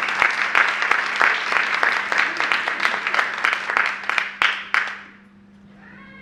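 Wrestling crowd applauding, a dense clatter of claps that dies away about five seconds in, over a steady low hum.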